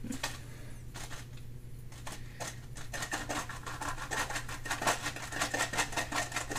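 Salt being shaken out of a canister into a cup: a dry patter of grains that is faint at first and turns into a quick, steady run of ticks about three seconds in.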